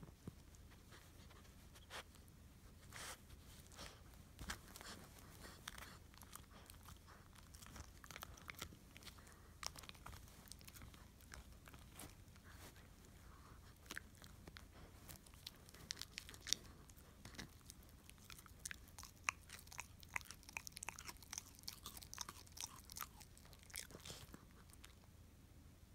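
Small dog gnawing and crunching on a chew bone: faint, irregular crunches and clicks that come faster and louder in the second half.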